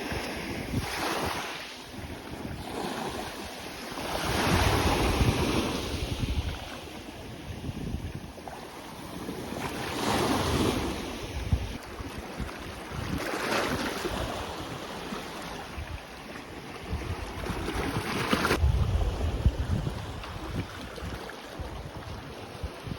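Sea waves breaking and washing up on a beach, swelling and falling back every few seconds. Wind gusts rumble on the microphone.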